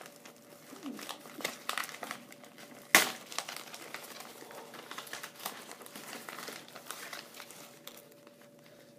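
Plastic poly mailer crinkling and rustling as it is handled and pulled open by hand, with a sharp snap about three seconds in. The rustling thins out near the end.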